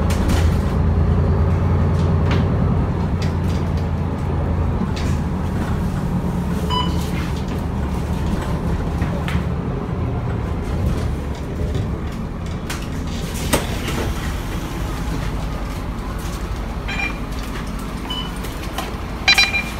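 Bus cabin rumble from the engine and running gear, easing off as the bus slows to a stop. A few short electronic beeps, most likely the card reader at the exit door, sound over it, the loudest just before the end as the doors open.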